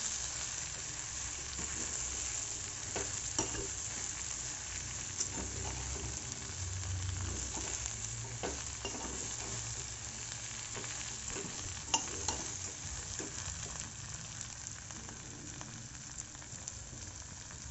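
Sliced okra sizzling steadily as it fries in oil in a kadai while a metal spoon stirs it through the spice powders, with a few short scrapes and clicks of the spoon against the pan.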